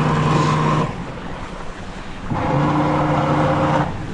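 A boat's motor run hard in two bursts of about a second and a half each: a steady hum over a rush of churned water.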